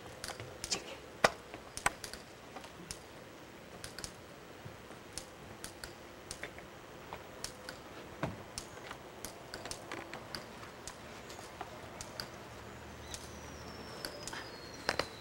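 Sparse, irregular light clicks and knocks, the sharpest about a second in and a duller thump about eight seconds in, with a faint high whistle falling in pitch near the end.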